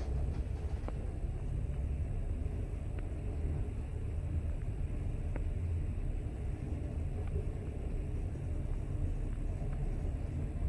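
1960s Schindler two-speed AC traction lift car running upward at full speed between floors, a steady low rumble heard from inside the car. A faint click sounds every couple of seconds.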